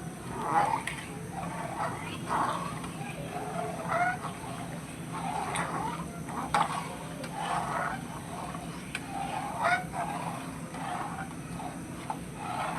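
Chickens clucking in short, irregular calls about once a second, over a steady low hum.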